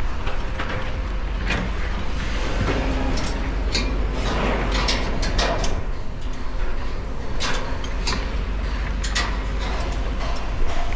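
Wind rumbling steadily on the microphone, with many scattered clicks and knocks from climbing on the crane's steel structure.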